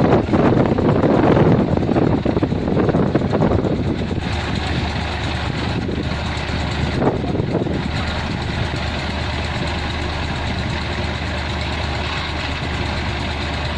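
Diesel engine of a Kubota harvesting machine running steadily. It is louder and rougher for the first four seconds or so, then settles to an even hum.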